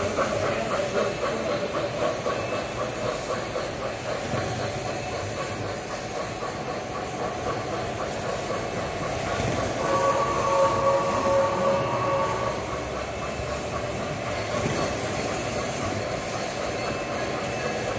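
Model train rolling past close by: a model Pere Marquette Berkshire steam locomotive hauling freight and passenger cars, wheels rumbling and clicking steadily over the rails. A rapid regular clicking rhythm comes at the start, and a steady held tone sounds from about ten to twelve seconds in.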